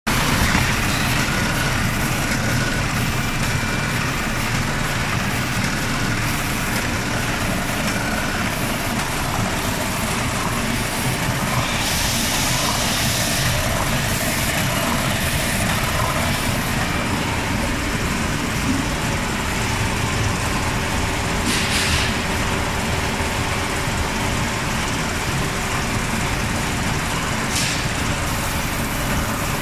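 Hemingstone 1400 FB bottom-seal plastic bag-making machine running steadily, a dense even mechanical clatter and hum, with a few short hisses at about twelve, twenty-two and twenty-eight seconds in.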